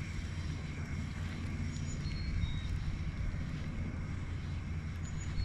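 A steady low engine rumble runs throughout. A bird gives a short, high, falling call twice, about three seconds apart.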